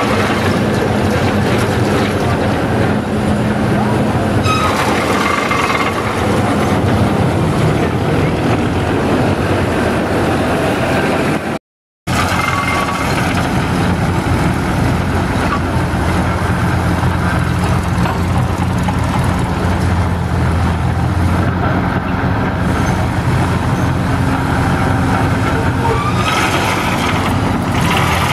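Lorain 80-J cable shovel's diesel engine running steadily under load as it digs, with a few short high-pitched whines over it. The sound cuts out for a moment near the middle.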